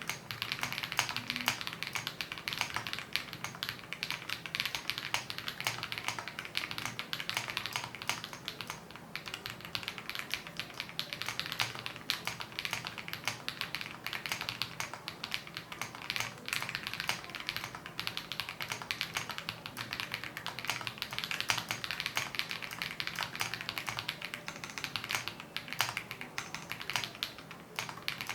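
Continuous fast typing on an Ikki68 Aurora R2 mechanical keyboard with a polycarbonate plate, lubed Akko Radiant Red linear switches and lubed stabilizers, a dense stream of keystroke clicks.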